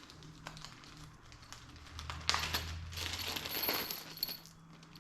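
Small metal parts clinking: hardware and tools handled while the cover is bolted on, with scattered clicks at first, then a louder stretch of rattling and scraping from about two seconds in.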